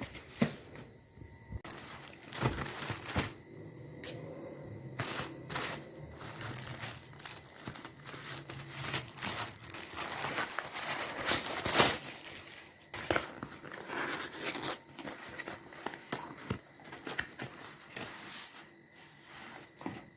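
Packaging being handled and opened: plastic and paper crinkling and tearing, with many small clicks and knocks.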